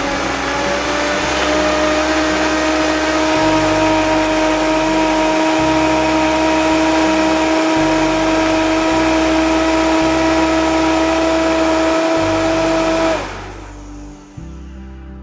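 Blender motor running, grinding a thick adobo of dried chiles, garlic, spices, vinegar and water: a loud, steady whine that rises slightly in pitch in the first second, then cuts off suddenly about 13 seconds in. Soft guitar music plays underneath and carries on after the blender stops.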